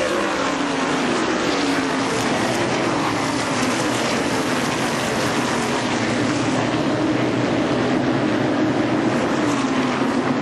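Racing car engines running hard and continuously, their pitch sliding down and back up several times as cars pass.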